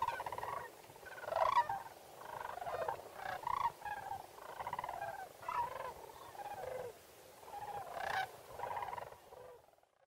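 Flock of sandhill cranes calling, many calls overlapping one after another, fading out near the end.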